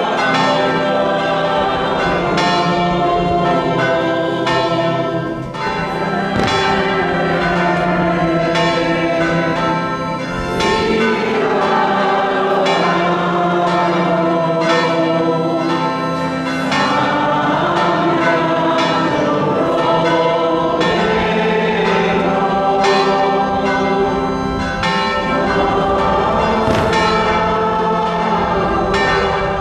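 Church bells ringing in a continuous peal, about one strike a second, with choral singing alongside.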